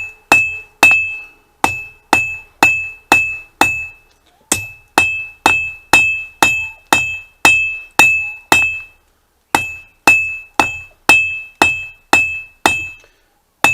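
Blacksmith's three-pound hand hammer striking hot mild steel on an anvil, about two blows a second, each with a short, high anvil ring. The blows come in three runs with brief pauses between them, as the hammer marks are smoothed out of the workpiece.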